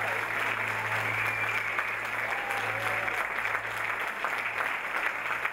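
Audience applauding steadily, over a low steady hum.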